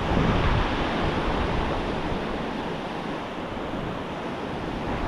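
Surf breaking on a beach as a steady wash of noise, with wind gusting on the microphone, strongest in the first second or so.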